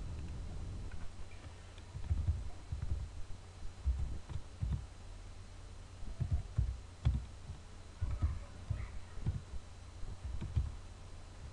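Typing on a computer keyboard: irregular, dull key thumps that start about two seconds in.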